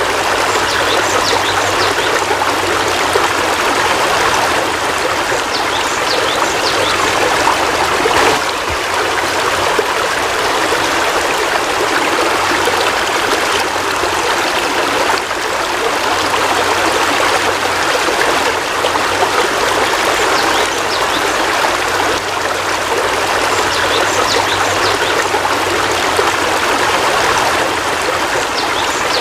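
Heavy rain falling steadily, an even, unbroken hiss of water.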